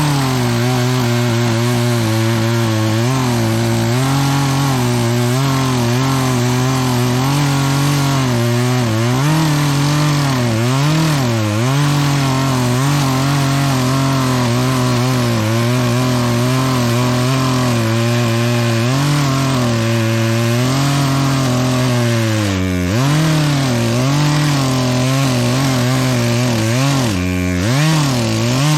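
Chainsaw running under load while cutting into a tree trunk. Its engine pitch dips and recovers several times, sagging deepest about 10, 22 and 27 seconds in, as the cut bogs it down on a chain the owner admits could have been sharper.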